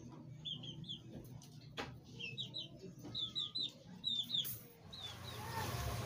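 Birds chirping: short, high, falling chirps in quick groups of two to four, with a few sharp clicks in between. Near the end the chirps stop and a steady hiss takes over.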